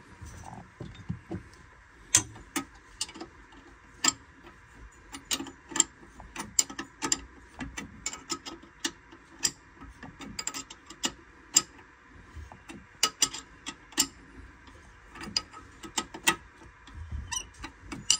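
An 11/16 wrench working a freeze plug in the top of the port exhaust manifold of a PCM marine engine: irregular sharp metallic clicks, some coming in quick runs.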